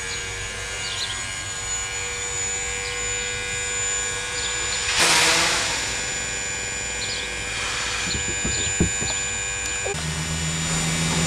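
Steam locomotive running slowly on approach, a steady mechanical drone with a few steady tones, and a short burst of hiss about five seconds in.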